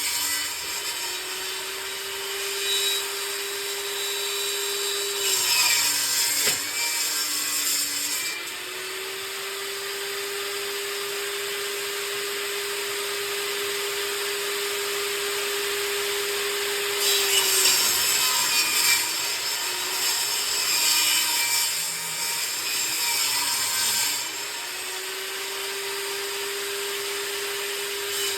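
Table saw running and ripping boards into strips. The motor's steady hum sags in pitch several times as the blade cuts into the wood, each time with a burst of rasping cutting noise, then climbs back up to speed.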